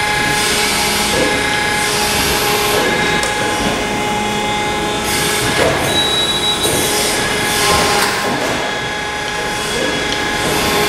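Thalmann ZR long folder running a bend cycle: its hydraulic pump runs with a steady hum and tone, and there are several surges of metallic scraping and rattling as the folding beam swings and the long sheet-metal part is bent. A sharp click right at the start.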